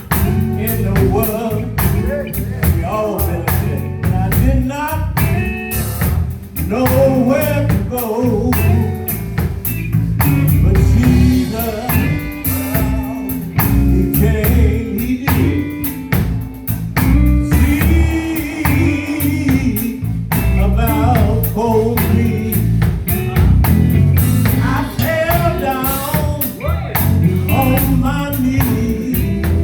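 Live gospel music: a singer with electric guitar, bass and drum kit playing a steady beat.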